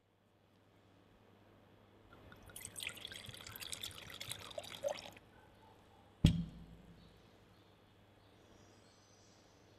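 Red wine poured from a bottle into a stemmed wine glass for about two and a half seconds, followed a second later by a single sharp knock, the loudest sound here.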